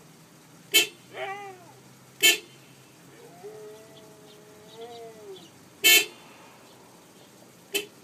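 Four short car-horn toots, the loudest sounds, with a Siberian husky howling along between them: a brief rising-and-falling howl after the first toot and one long, steady howl of about two seconds in the middle.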